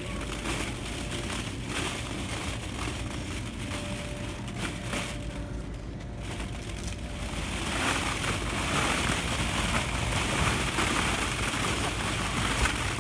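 Hollow plastic ball-pit balls rustling and clattering against each other as a toddler crawls and rolls through them, getting louder about two-thirds of the way through.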